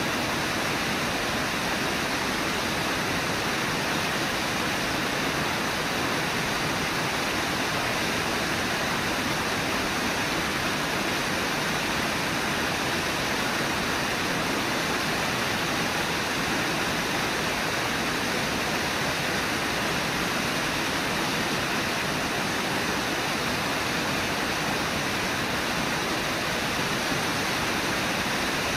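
Steady rushing of the Brooks River's white water at Brooks Falls, an even, unbroken wash of water noise.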